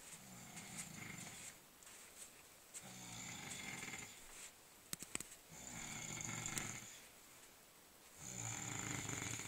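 A person snoring in deep sleep: four long snores, each about a second and a half, coming roughly every three seconds. A couple of sharp clicks fall between snores about five seconds in.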